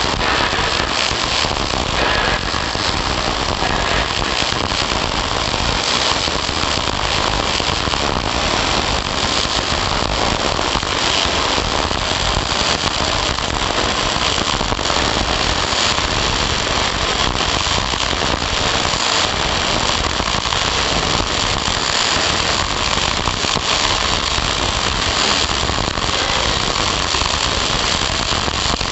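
Electric arc welding on a vertical joint: the arc crackles and sizzles steadily without a break.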